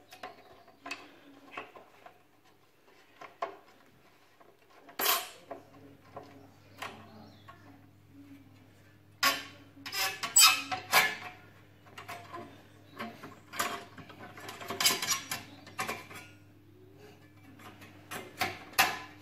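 Metal parts of a Neff Slide and Hide oven door being handled and fitted: irregular clinks, clicks and scrapes, busiest about ten and fifteen seconds in. A low steady hum comes in about five seconds in.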